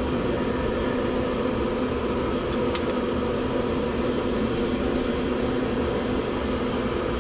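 Steady drone of a fan-driven machine running, with a constant low hum and a faint click about three seconds in.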